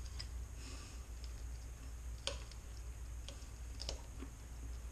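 Knife and fork clicking against a dinner plate a few times while cutting food, over a low steady hum.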